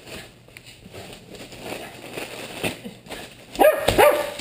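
Jack Russell terrier rustling and crackling plastic packing and bubble wrap in a cardboard box, then barking loudly in a few high, excited yips near the end.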